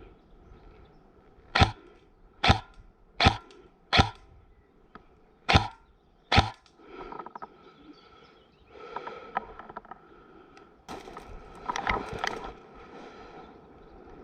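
Airsoft rifle fired in single shots: six sharp cracks, the first four less than a second apart, then two more after a short pause. Softer rustling and scuffing follows.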